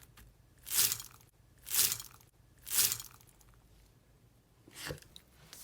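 Slime being worked by hand, giving three crunching sounds about a second apart and a weaker one near the end.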